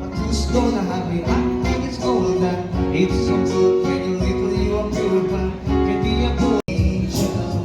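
Background music led by a plucked guitar, starting at the top with a steady beat. It cuts out for a split second about six and a half seconds in, then carries on.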